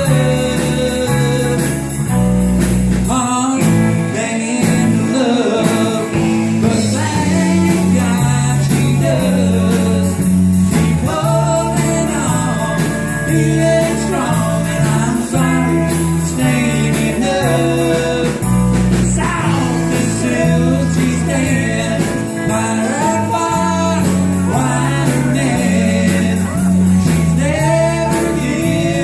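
Country band music with a steady beat: bass and drums under a bending lead melody, with no sung words, likely an instrumental break in the song.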